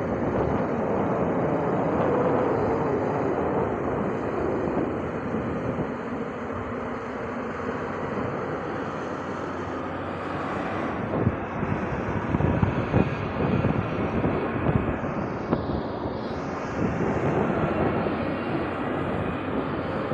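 Excavator engine running steadily as it works, with a cluster of short knocks about halfway through.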